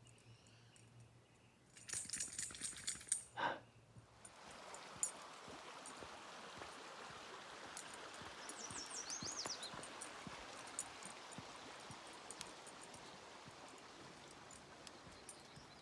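A brief clatter of small jingling clicks, then, from about four seconds in, the steady faint rush of creek water, with a short descending bird chirp near the middle and a few scattered light clicks.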